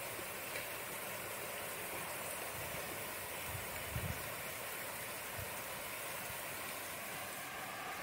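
Steady rain falling, an even hiss, with a couple of soft low thuds about halfway through.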